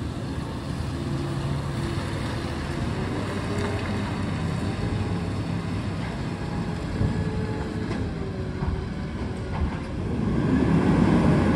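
Garbage truck's engine running steadily as the truck drives slowly through, getting louder about ten seconds in as it comes around toward the listener.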